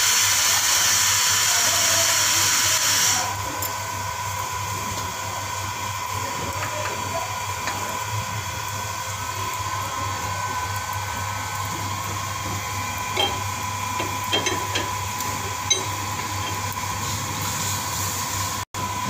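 Compressed air hissing loudly at a coach's brake-system air hose coupling, cutting off abruptly about three seconds in. After that a steady low hum with a faint high whine, and a few light metallic clicks as the hose couplings are handled.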